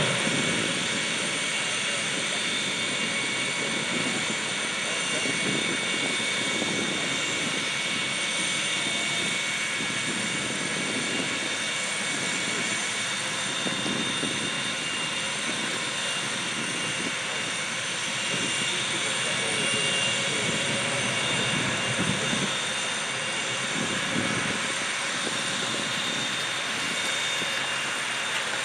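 Steady whine of an aircraft turbine: several high tones held evenly, over an uneven low rumble.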